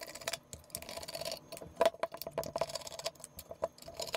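Irregular small clicks and ticks of a screwdriver working Phillips screws out of the soldering station's case, with light scraping as the case is handled.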